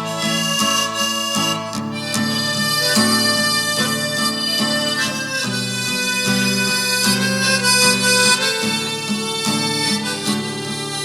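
Harmonica playing the melody of a gospel song, its notes sounding over sustained chords that change every half second or so.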